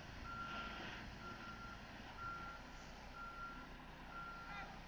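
A vehicle backup alarm beeping steadily, about one beep a second, over the low running of a heavy vehicle's engine.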